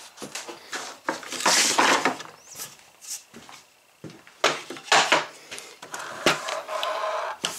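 Irregular clatter, knocks and scrapes of pieces of scrap wood being sorted through and handled in a workshop.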